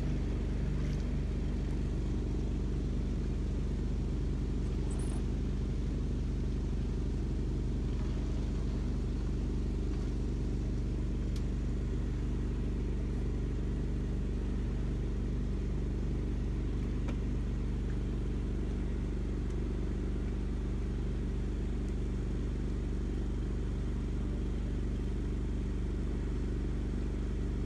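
A boat's engine running steadily: a low, even drone that does not change.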